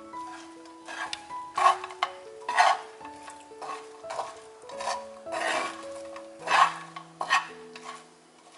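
Spatula stirring and scraping gochujang-coated dried anchovies in a pan, in irregular strokes about once a second, some loud, with background music playing.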